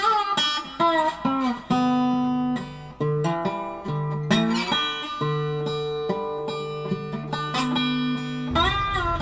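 Background music: a plucked acoustic guitar playing a melody, with some notes sliding in pitch.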